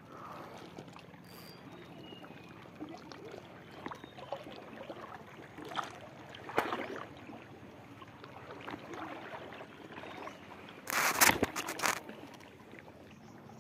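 Faint lapping of shallow seawater around the rocks, with a few small clicks. About eleven seconds in, several loud, harsh rustles as a cloth sleeve rubs over the microphone.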